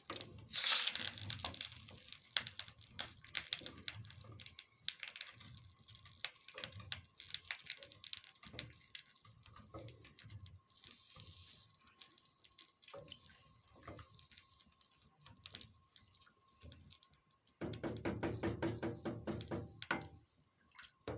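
A spoon stirring rice in water in a cooking pot: wet sloshing with many small scrapes and knocks of the spoon against the pot, busier and louder for a couple of seconds near the end.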